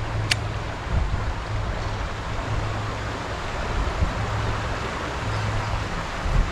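Wind buffeting the microphone outdoors, a steady rushing noise with an uneven low rumble, and one brief sharp click near the start.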